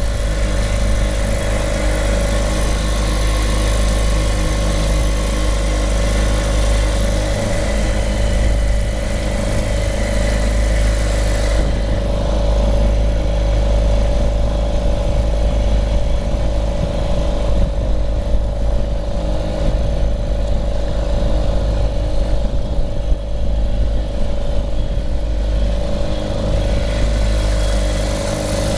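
Mercury 3.3 hp single-cylinder two-stroke outboard motor running at a steady speed, its pitch holding even.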